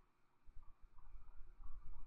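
Quiet room tone: a faint low rumble with a few soft, indistinct faint sounds, no distinct event.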